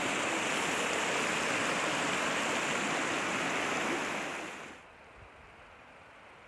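Small mountain creek running, a steady rush of water that fades out about four and a half seconds in, leaving only a faint hush.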